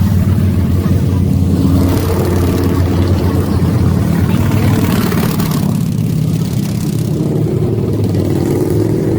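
Motorcycle engine running steadily, a low hum with a hiss of noise over it.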